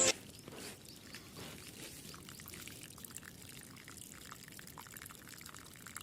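Faint trickling and pouring of water, a low even splash with small irregular drips.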